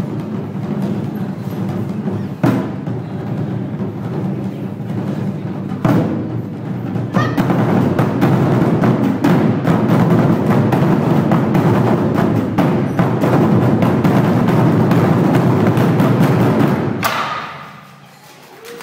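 Taiko ensemble beating barrel-bodied nagado-daiko drums with wooden bachi sticks, a dense run of strikes with a few sharp accents. It grows denser and louder about seven seconds in, then all the drums stop together about 17 seconds in and the ringing fades away.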